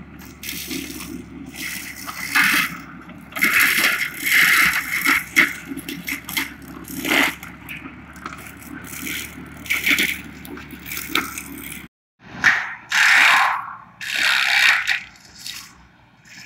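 Excavator-mounted brush mulcher head shredding brush and saplings, in loud, irregular bursts of crackling and scraping over the steady running of the machine. The sound drops out briefly about twelve seconds in.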